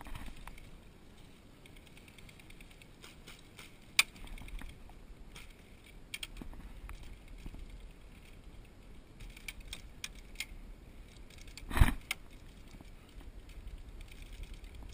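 Rattling and small clicks of handled airsoft gear and rifle as a player shifts behind a wooden fence, with a sharp click about four seconds in and one brief, loud thump about three seconds before the end.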